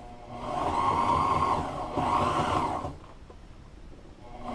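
Sewing machine stitching a double top-stitched seam in boat-seat upholstery. It runs in two bursts, stops about three seconds in, and starts again near the end.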